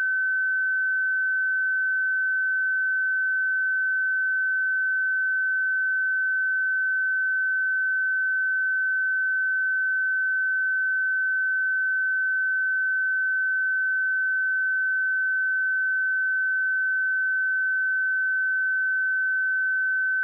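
A pure 1527 Hz sine-wave test tone, held steady at one pitch and level.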